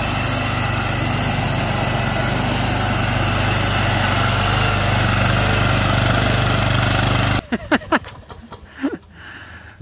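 Ariens Zoom 1840 zero-turn mower's 18 hp Kohler engine running steadily at speed as it drives and mows. The sound cuts off abruptly about three-quarters of the way in, leaving only a few faint short sounds.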